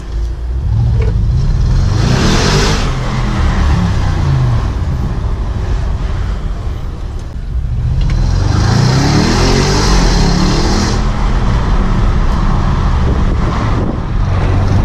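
Audi S7's twin-turbo V8, heard from inside the cabin, accelerating hard twice: the engine note climbs at about two seconds, drops back, then climbs again from about eight seconds as the car picks up speed.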